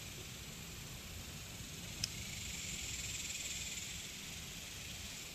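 Steady high-pitched chorus of insects, growing a little louder about two seconds in, with one sharp click just before that.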